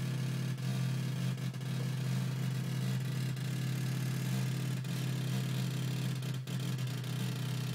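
Chaotic electronic oscillator circuit, Chua type, played through a loudspeaker: a steady, buzzy drone with a strong low pitch and rough, noisy overtones. The circuit is running in its spiral chaotic mode.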